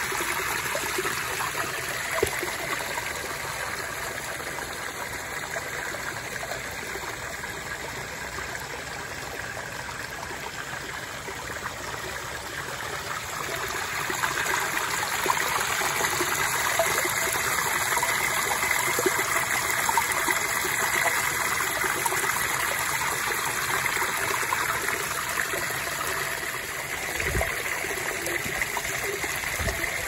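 A small cascade of water pouring off a stone ledge and splashing into a flowing channel below: a steady rushing splash that grows a little louder about halfway through.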